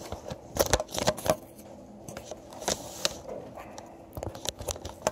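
Handling noise from a recording phone picked up and set back down on a desk: irregular sharp clicks, knocks and rubbing, bunched about a second in and again densely near the end.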